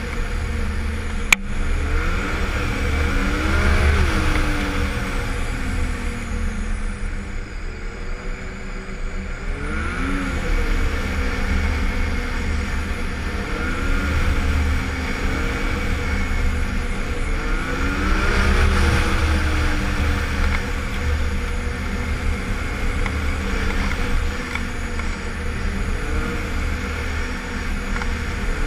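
Yamaha snowmobile engine running under way on a trail ride, its pitch climbing and dropping back again and again as the throttle is worked, over a constant low rumble of wind on the helmet camera. One sharp click about a second in.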